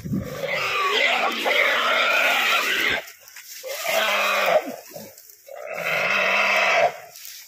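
Wild boar squealing in distress, three long harsh screams with short breaks between, as it is caught and held down in a net.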